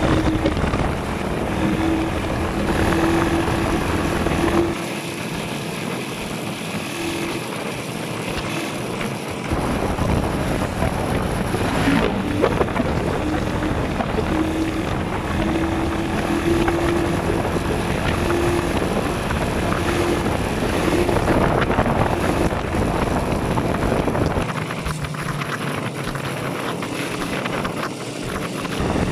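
A vehicle's engine running at road speed, with wind rushing over the microphone. The low wind rumble eases twice for a few seconds.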